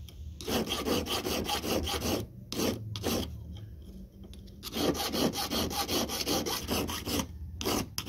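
Hand file rasping back and forth on the metal prongs of a ring, in quick strokes about five a second, with a pause of over a second in the middle.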